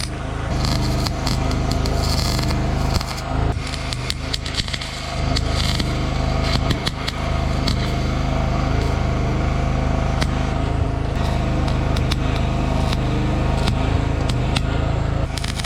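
Electric arc welding on car body sheet metal: a dense crackle of the arc over a steady low hum, with irregular pauses and scraping in the first few seconds. It is tack-welding cracked spot-welded seams in the body back together.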